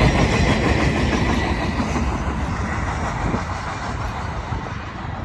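Freight train rolling past, its cars' wheels clicking over the rail joints, the rumble slowly fading.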